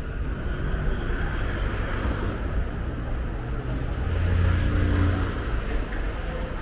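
City street traffic with a steady low rumble. A vehicle's engine hum swells about four seconds in and eases off after five.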